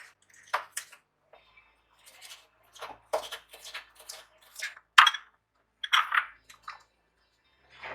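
Kitchen knife slicing a green pepper on a cutting board: a string of short, crisp cuts at an irregular pace, about one or two a second.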